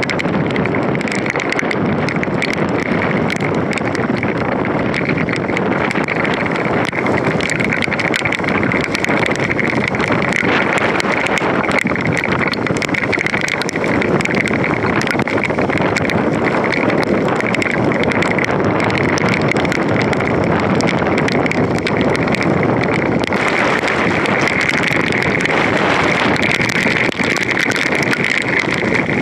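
Hurricane-force wind and driving rain from a tropical rainband, a loud, steady rush with constant crackle.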